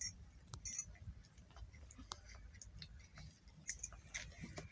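Faint, scattered small clicks and taps at irregular times as a toddler handles a plastic toy car.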